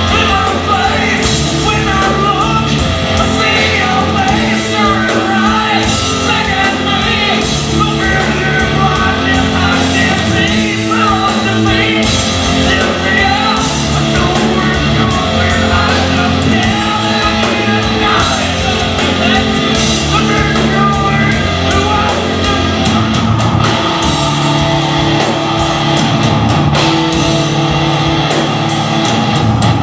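Progressive metal band playing live: a full band with a vocalist singing and shouting over it, loud and without a break.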